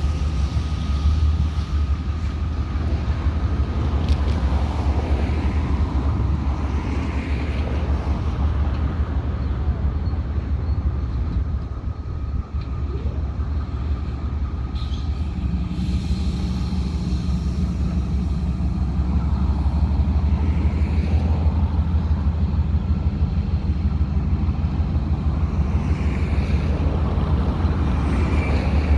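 Ferromex Super 7 MP diesel-electric locomotive running with a steady low engine hum as it rolls slowly along the track. About halfway through a second, higher engine tone joins and the sound gets slightly louder.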